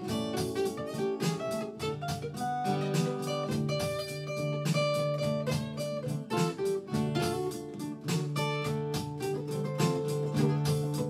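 Acoustic guitar picked in an instrumental blues passage, a steady low bass note under a run of picked higher notes, with no singing.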